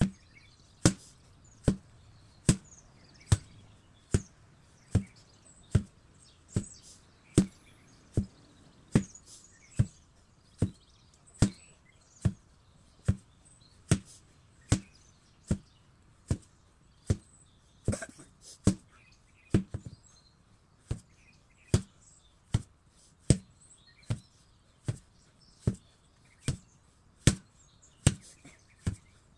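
8 kg sledgehammer striking in a steady rhythm: a sharp, heavy thud about every 0.8 seconds, evenly paced throughout.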